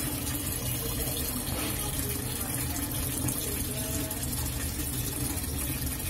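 Water running steadily into the tub of a National NA-733H top-loading washing machine as it fills after being switched on, with a low steady hum under it.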